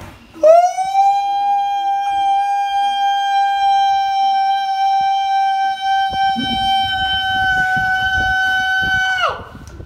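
A single loud horn blast held at one steady pitch for almost nine seconds, sliding up as it starts and dropping in pitch as it cuts off.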